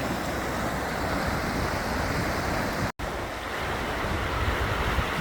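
Snowmelt mountain stream rushing steadily, with wind rumbling on the microphone. The sound cuts out for an instant about three seconds in, then the same rushing water carries on.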